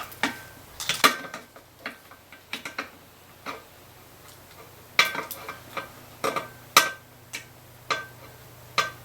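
Irregular sharp metallic clicks and taps, about fifteen, some ringing briefly, as small tools and switch parts are worked loose from a guitar amp footswitch.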